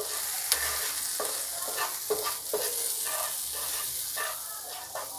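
Wooden spatula stirring and scraping whole karonda berries and spice powders around a hot oiled nonstick pan, with the oil sizzling underneath. Irregular scrapes and light knocks of the spatula over a steady frying hiss, as the masala is mixed into the berries.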